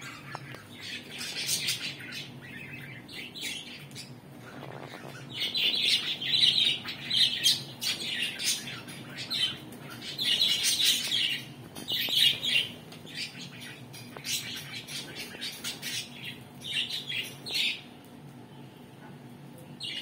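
Budgerigars chirping and chattering in repeated bursts, loudest through the middle, over a faint steady low hum.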